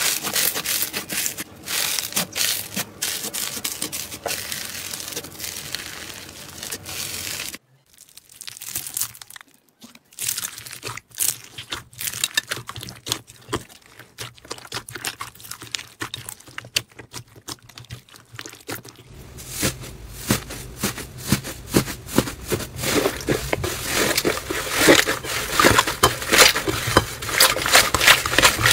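Hands squeezing and kneading slime: a dense run of small crackling, popping clicks as the slime is pressed and pulled. The sound cuts off sharply about eight seconds in, comes back quieter and sparser as the hands press into slime mixed with foam beads, then grows louder and busier over the last third.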